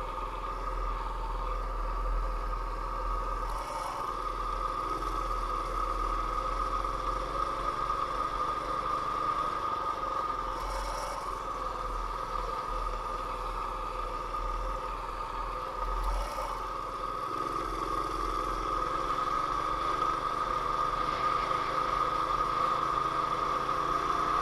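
Sears Roper mini bike's small engine running at a steady speed under way, holding one even pitch, with a few light rattles.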